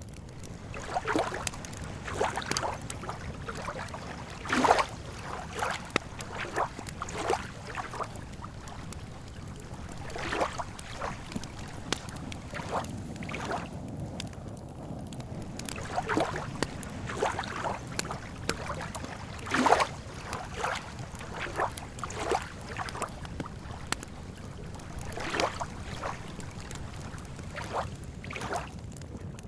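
Campfire crackling and popping irregularly, with two louder pops about five seconds in and near twenty seconds. Under it runs a steady low wash of lake water lapping.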